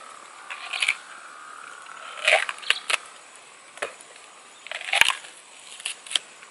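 Crisp crunching of bites into a firm, raw, peeled fruit: sharp cracks and crunches come at irregular moments, the loudest about two and a third seconds and five seconds in.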